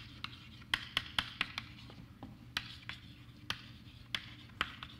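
Chalk tapping and scratching on a blackboard as words are written: a string of sharp, irregular clicks, about fourteen in five seconds, over a steady low room hum.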